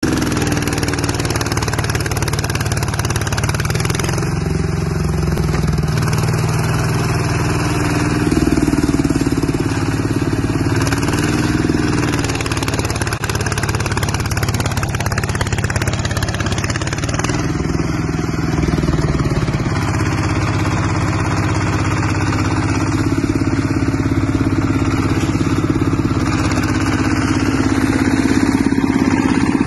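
Yanmar TF150 single-cylinder diesel engine on a two-wheel walking tractor, running steadily as it pulls the machine through sand. The engine speed wavers up and down a few times in the first half, then holds steady.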